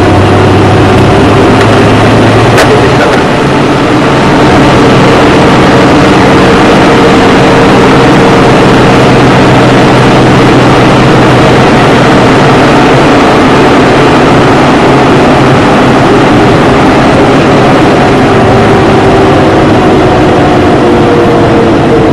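Engine and road noise of a Jeep cruising on a paved highway, heard from inside the cab: a loud, steady drone with an engine tone that drifts slowly up and down in pitch.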